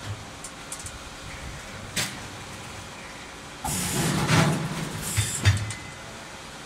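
Vertical form-fill-seal packing machine cycling: a steady mechanical background with a sharp click about two seconds in, then a louder noisy burst of about a second and a half near the middle, ending in a couple of sharp clicks.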